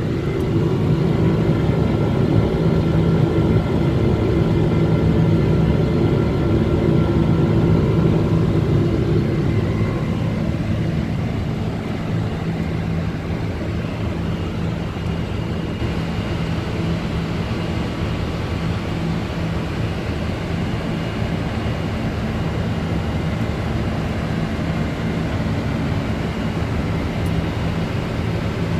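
Steady cockpit noise of a Boeing 747-400 in the climb: the engines and airflow make a continuous rush with a low hum. The noise eases a little about ten seconds in.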